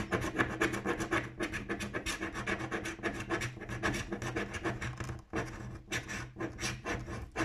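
A finger scratching the coating off a paper scratch-off lottery ticket in quick repeated strokes, several a second, with short breaks a little after five seconds in. The coating is coming off with difficulty.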